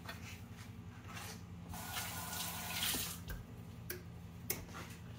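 Light clicks and handling noise as a fish is set into a stainless-steel fish-cooker pan, with a brief hiss about two seconds in, over a steady low hum.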